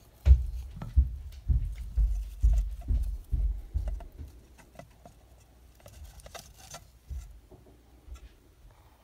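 Low thumps and knocks, about two a second for the first four seconds, then lighter rustles and clicks: a hand moving about inside a frog terrarium among the leaf litter and a hide, and lifting out a plastic petri dish.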